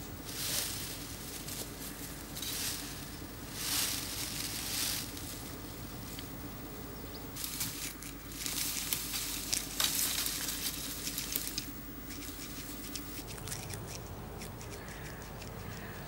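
A beaver moving and feeding among snow-covered twigs and branches: bursts of rustling and crunching, a few short ones at first, then a longer busy stretch of about four seconds in the middle with a sharp snap or two.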